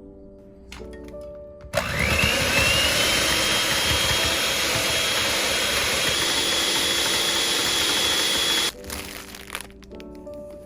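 An electric blender-type kitchen appliance switches on about two seconds in. Its motor whine rises quickly and then holds steady while it runs loudly for about seven seconds, and it cuts off suddenly. Soft background music plays before and after.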